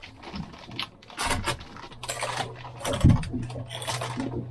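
Clinking and knocking of small objects being handled, a string of short irregular clatters, with a low steady hum starting about two seconds in.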